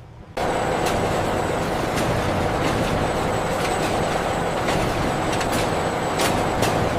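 Heavy vehicle running steadily, a dense rumble and hiss with occasional sharp clicks; it starts abruptly about half a second in.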